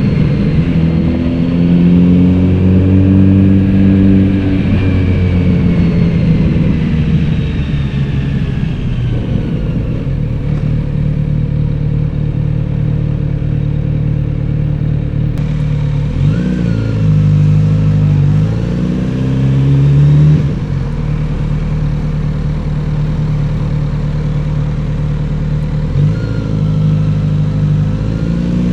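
Kawasaki Z900RS's inline-four engine and exhaust while being ridden: it pulls up through the gears with rising revs and drops at each shift, then runs steadily at low revs, and picks up revs again twice later on.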